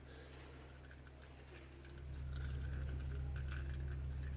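Old engine oil dripping from the open sump drain into a catch container: faint, scattered drips. Under them runs a steady low hum that grows louder about halfway through.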